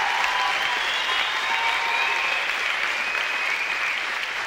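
Audience applauding steadily at the end of a stand-up set.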